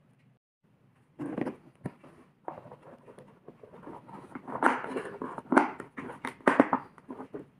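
Plastic snap-lock lid being fitted and pressed down onto a food container: irregular rubbing and clicking, busier and louder in the second half, with a few sharp clicks near the end.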